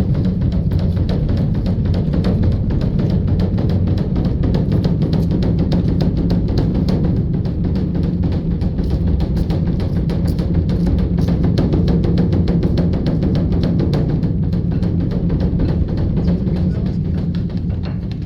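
Large Buddhist dharma drum (beopgo) beaten in a fast, unbroken roll of deep strokes.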